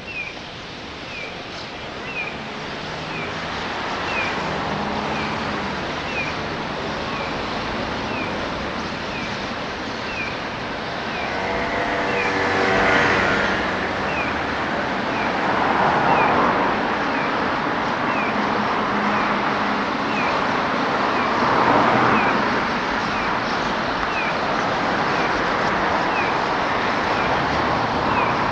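Road traffic: cars passing one after another, swelling loudest about 13, 16 and 22 seconds in, with an engine tone rising in pitch around the first pass. A short high chirp repeats steadily about once a second.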